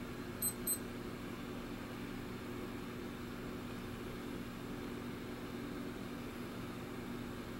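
Steady low background hum, like a fan or appliance running, with two quick high-pitched electronic beeps about half a second in.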